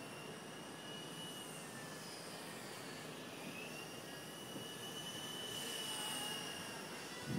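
Electric motor and rotor of a Nine Eagles Solo Pro 328 micro RC helicopter, fitted with an Xtreme motor, whining steadily in flight. The pitch dips about two seconds in and climbs back a second or so later. Wind rushes over the microphone.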